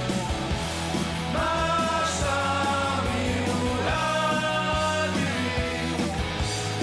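Rock song with a steady drum beat and sung vocals, the singer holding two long notes.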